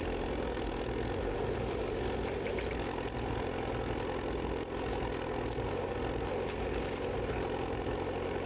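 A heavy machine's engine running steadily at an even pitch, with no revving, and light regular clicks over it.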